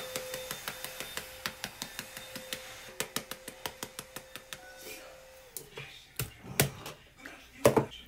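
Fingertips patting makeup into the skin of the face: a quick, even run of light taps, about four a second, with a steady tone underneath that stops partway through. A few louder knocks follow near the end.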